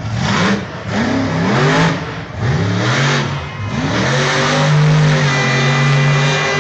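Bigfoot monster truck's big V8 engine revving in repeated rising bursts, about one a second, then held at steady high revs from about four seconds in as the truck spins a doughnut.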